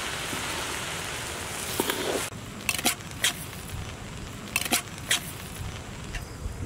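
Fried rice sizzling in a large wok as it is stirred with a spatula; about two seconds in the hiss stops abruptly. Several sharp metal clicks follow as scrambled egg is tipped from a steel ladle onto the rice.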